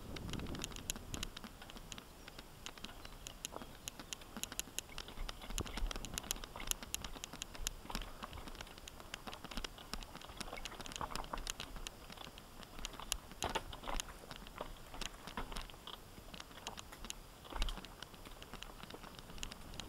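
Mountain bike rolling over a rocky single-track trail: a steady run of irregular clicks and rattles from the tyres on loose stones and the bike's parts shaking, with one louder knock near the end.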